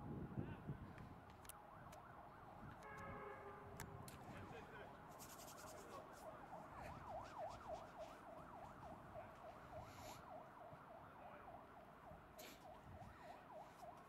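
Faint siren yelping rapidly up and down, several swoops a second.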